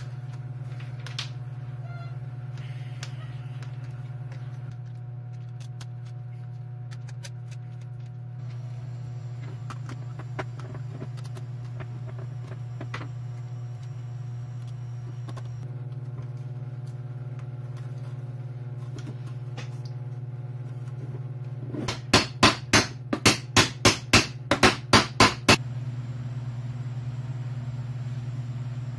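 A run of about ten sharp hammer strikes, about three a second, over a steady low hum, during assembly of a wooden speaker front plate. Light clicks of hand work come earlier.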